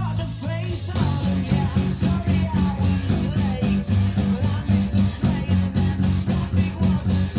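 Rock band playing: a held guitar chord gives way about a second in to strummed guitar over a bass line in a steady rhythm.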